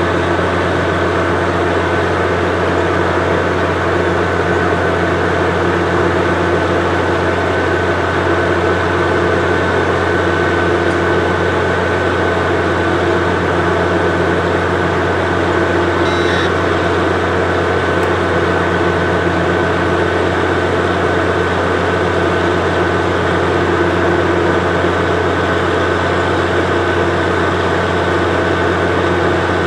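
Diesel freight locomotive engine running steadily close by, a constant deep drone with a steady high whine above it and no change in pitch.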